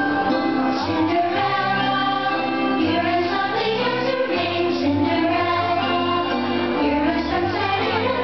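Fireworks-show soundtrack music with a choir singing, steady and loud throughout.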